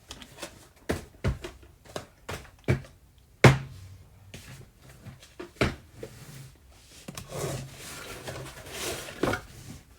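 A string of irregular knocks and thuds from objects being handled and set down on a desk, the loudest about three and a half seconds in, with some rustling near the end.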